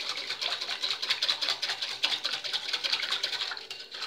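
Wire whisk beating fast in a glass bowl, a quick run of light clinking strokes against the glass while gelatin powder is dissolved in hot water. It tapers off near the end.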